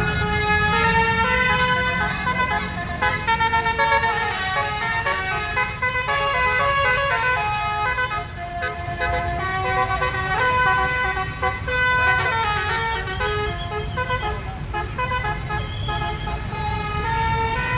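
Bus basuri horn, a multi-trumpet musical air horn, playing a melody of stepping notes with a few short slides in pitch, over a bus engine running.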